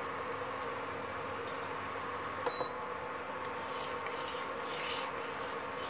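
A metal ladle stirring cooking milk in a stainless steel pot, rubbing and scraping against the pot's sides and bottom, over a steady faint hum.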